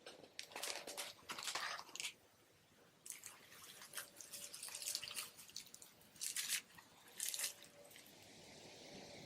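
Slime being squished and poked, making wet clicking and popping sounds in a few short bursts.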